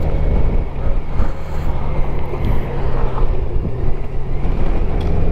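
Wind rushing over the microphone on a moving motorcycle, over the low, steady hum of a Honda Gold Wing's flat-six engine cruising.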